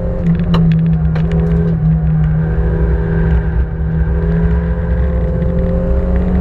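Cabin sound of a 1989 Honda Civic ED7's four-cylinder engine running hard on track, with a few sharp clicks about half a second to a second and a half in. The engine note then climbs steadily as the car accelerates through and out of a corner.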